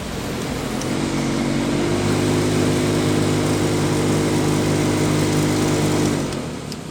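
Lada Kalina's heater blower fan running with a steady motor hum that grows louder about two seconds in, then fades away shortly before the end.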